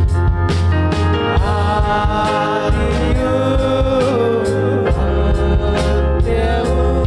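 Kannada Christian worship song: a singing voice comes in about a second in, over a band with a steady drum beat and heavy bass.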